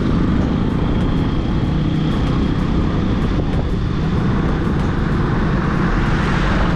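Suzuki Smash 115's single-cylinder four-stroke engine running steadily as the motorcycle is ridden along the road, under a steady rush of wind and road noise.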